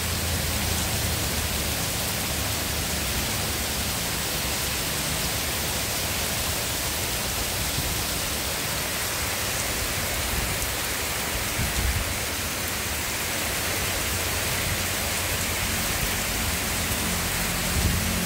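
Heavy tropical rain pouring steadily onto trees and flooded ground, an even hiss, with a couple of brief low thuds about twelve seconds in and near the end.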